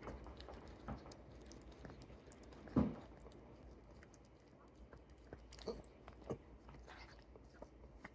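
Small dog licking a person's ear close to the microphone: irregular wet licking and smacking clicks. There is one louder thump about three seconds in.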